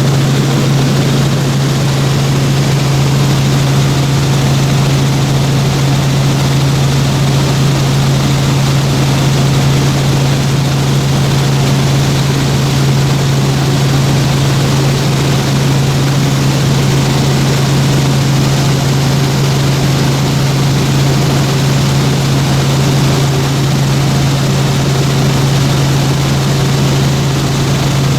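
Helicopter in flight: a loud, steady drone of engine and rotors with a strong low hum that holds one pitch throughout.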